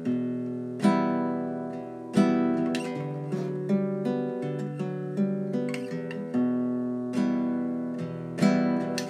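Background music: acoustic guitar strumming chords, a new chord about every second, each one ringing out and slowly fading.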